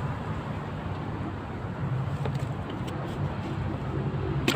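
Steady low engine hum over outdoor background noise, with one sharp click near the end.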